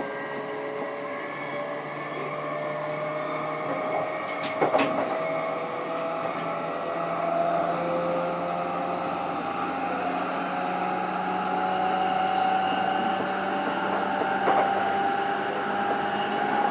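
Running sound inside a JR East E233 series motor car (MoHa E233-7430): the traction motor whine rises steadily in pitch over a low rumble as the train picks up speed. Two sharp knocks come about four and a half seconds in, and a fainter one near the end.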